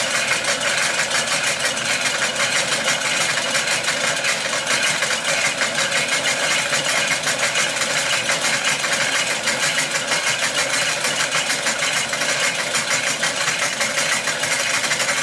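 Film projector running steadily, its claw mechanism giving a fast, even mechanical clatter.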